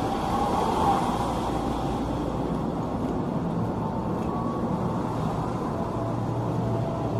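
Steady hum of a KRL Commuter Line electric train standing at the platform with its doors open, with faint steady tones from its equipment running underneath.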